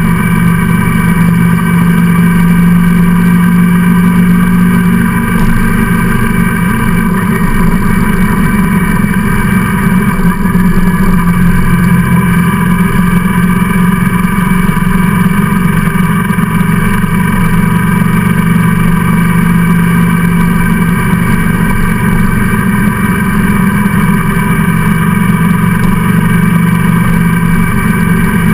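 Engine of the vehicle carrying the camera, running steadily at cruising speed under wind and road noise, with a held engine note and no gear changes or big revs.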